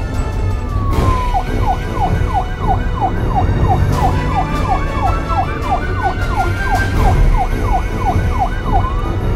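Police siren sound effect: a slow wail falling away in the first second switches to a fast yelp of about three falling sweeps a second, then turns back into a slow rising wail near the end.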